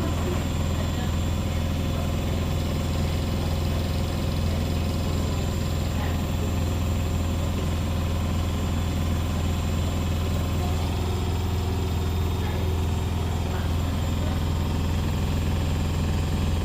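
Beko WS832425S washing machine's drum spinning at high speed: a steady, loud, deep hum with rumbling vibration.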